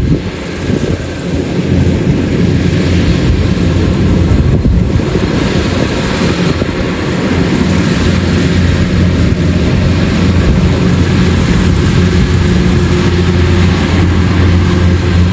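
Rice combine harvester running, a loud steady engine drone with a constant low hum, dipping briefly about a second in.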